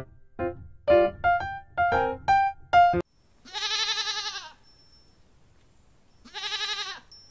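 Light keyboard music with spaced plinking notes stops about three seconds in, then a flock of sheep and goats gives two long, wavering bleats, the second near the end.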